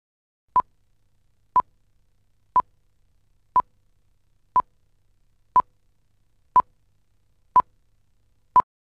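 Nine short electronic beeps, all of the same mid-high pitch, at a steady one per second.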